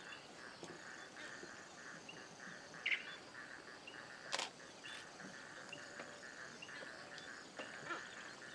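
Faint outdoor ambience with a steady, pulsing chorus that sounds like insects. A single short chirp comes about three seconds in, and a sharp click about four and a half seconds in.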